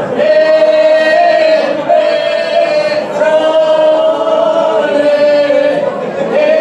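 A women's folk group singing ojkača, the Serbian traditional two-part style, together without instruments. They hold long, loud notes in phrases broken by short pauses every second or two.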